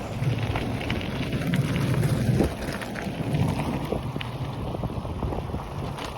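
Wind buffeting the microphone of a rider on a moving bicycle: a steady, low, fluttering rumble.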